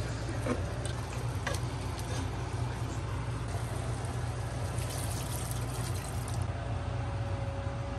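A spatula stirring pork, tomato and onion in a pot, with a few knocks against the pot early on, then a bowl of water poured into the pot about five seconds in, the pour stopping suddenly a second and a half later. A steady low hum runs underneath.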